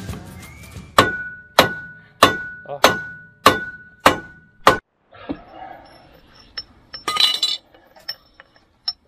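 Hammer striking steel parts of a Unimog 404 wheel hub seven times, about one blow every 0.6 s, each blow ringing with a clear metallic tone. After that come lighter clinks and handling knocks of metal parts.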